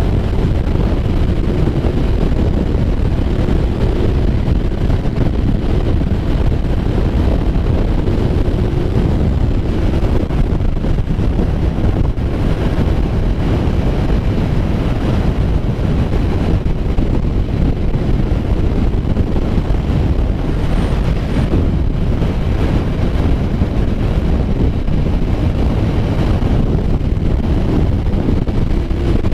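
Steady wind rush buffeting the microphone while riding a Kawasaki Ninja 1000 at road speed, with the motorcycle's engine and road noise running underneath.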